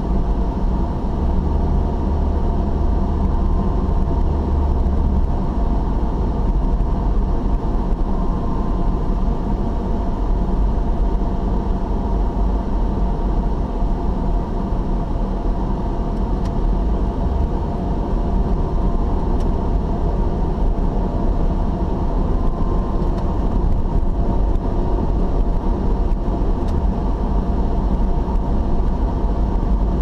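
Steady engine and road noise of a car cruising, heard from inside the cabin.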